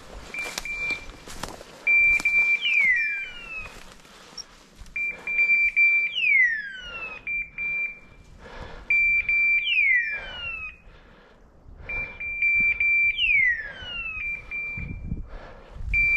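A hunting dog's beeper collar sounding a high steady beep followed by a falling, hawk-like screech, repeating about every three and a half seconds. Rustling steps through undergrowth run faintly underneath.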